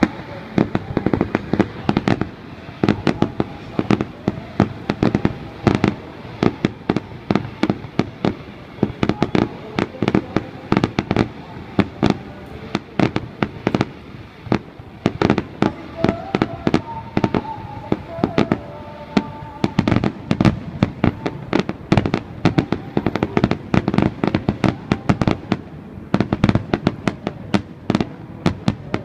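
Aerial fireworks display: shells bursting in a rapid, unbroken series of sharp bangs, several a second.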